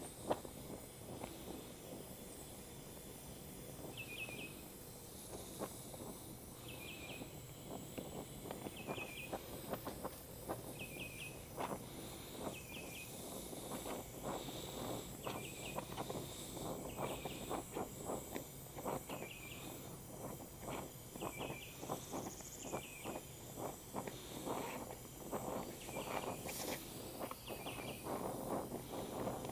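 Gas brazing torch hissing as it heats a cast iron part, with irregular crackles and pops that come thicker after about 12 seconds. A short, high triple chirp repeats every second or two from about four seconds in.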